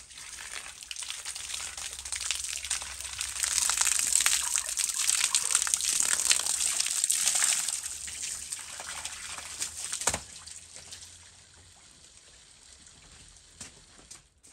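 Water from a garden hose spraying onto a large whole fish hung on a hook and splashing off it. The spray is strongest in the middle and fades over the last few seconds, with one sharp knock about ten seconds in.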